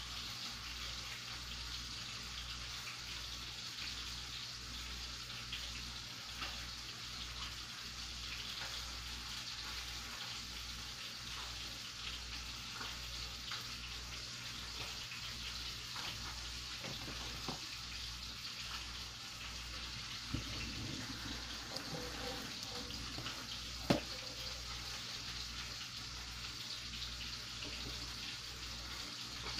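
Steady kitchen hiss over a low, evenly pulsing hum, with two short sharp clicks about two-thirds of the way through.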